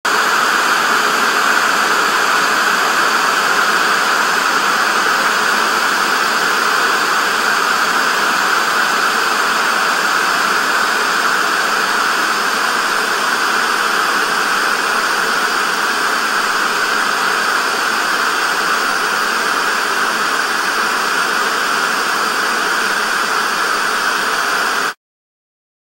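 Loud, steady hiss of TV static snow, unchanging throughout, cutting off suddenly near the end.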